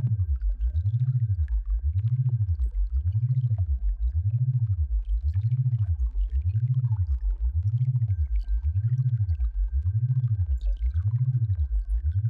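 Synthesized sound-therapy tone: a low hum that glides up and down in an even cycle about once a second. A faint steady high tone sits above it and drops out briefly midway.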